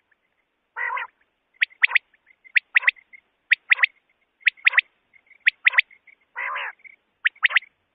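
Male common quail song, a recording used as a hunting lure: a sharp three-note 'whit wit-wit' phrase repeated about once a second, with a lower, rougher call about a second in and again near the end.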